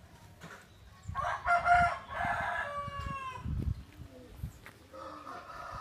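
A rooster crowing once, a call of about two seconds that ends in falling notes, followed by soft, low clucking from chickens.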